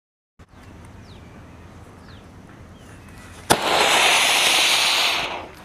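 Small cone-shaped firework going off with a sharp crack about three and a half seconds in, then a loud hiss for nearly two seconds as it sprays fire and smoke, before fading out.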